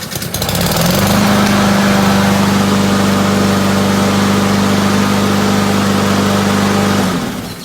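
Craftsman LT1000 lawn tractor's engine catching at once and coming up to a steady run within about a second, now that its closed fuel valve has been opened. It runs evenly for several seconds, then shuts off and winds down near the end.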